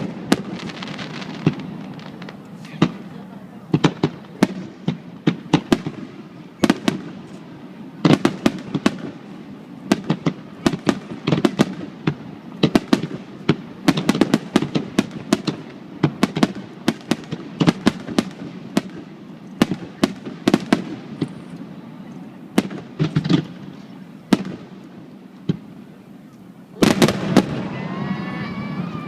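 Fireworks display: aerial shells bursting in a long run of sharp cracks and bangs, coming irregularly and bunched into quick volleys, with a louder dense barrage near the end.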